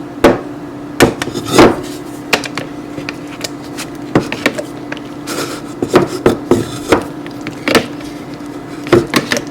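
Potato masher knocking irregularly against the inside of a blender jar while mashing cooked sweet potato by hand, over a steady low hum.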